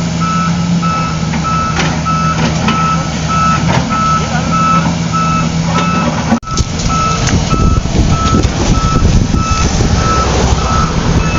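Reversing alarm of a heavy construction vehicle beeping steadily over its running engine. The sound cuts out briefly about halfway, and after that the engine rumble is rougher.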